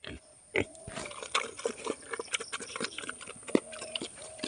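A young pig eating mashed feed from a steel bowl: irregular wet chomping with sharp clicks, the loudest about three and a half seconds in.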